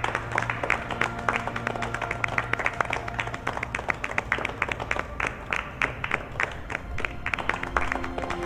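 A group of people clapping and applauding, with background music of long held tones under it.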